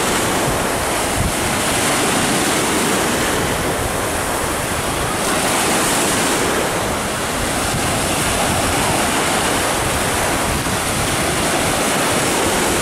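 Sea surf washing and breaking steadily on the shore, swelling and easing slightly, with wind buffeting the microphone in a low rumble.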